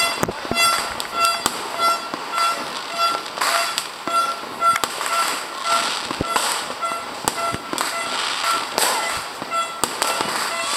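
Fireworks and firecrackers going off in a dense string of sharp bangs and crackles, with a few short whistles. Through the first half a high beeping tone pulses about three times a second.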